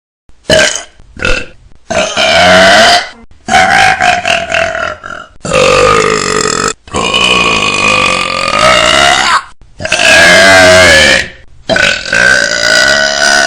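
Burping contest: about eight loud burps in a row, many drawn out for two seconds or more, their pitch wavering.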